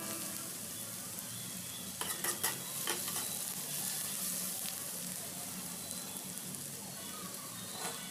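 Chopped onions sizzling steadily in hot oil in a metal kadhai, with a few spoon scrapes and clicks against the pan as they are stirred, about two to three seconds in.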